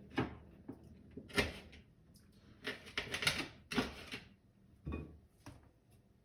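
Kitchen knife knocking down on a cutting board in irregular chops, about seven or eight sharp knocks with a quick cluster in the middle, as the nails are cut off chicken feet.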